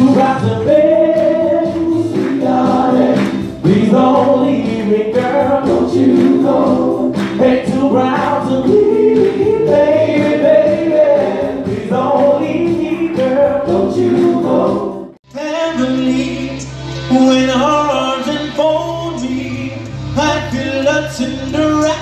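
Live Motown-style soul vocal group singing in harmony over backing music. About 15 seconds in, the music cuts off suddenly and picks up with a different performance.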